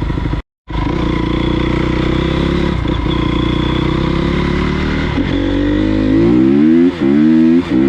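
Honda CRF250R's single-cylinder four-stroke engine running at a steady pitch, then from about five seconds in revving up with rising pitch and two brief dips, as the bike accelerates through the gears. The sound cuts out for a moment about half a second in.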